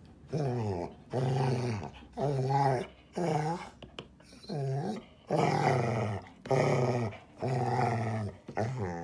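A dog growling and grumbling in a run of about nine drawn-out calls, each bending up and down in pitch, with short pauses between them.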